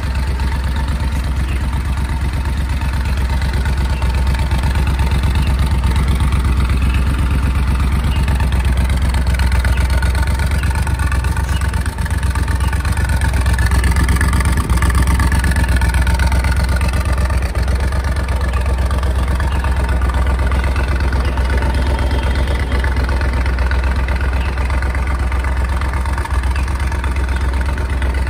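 Triumph Thunderbird LT 1700's parallel-twin engine idling steadily, a little louder midway when close to the twin exhaust tips.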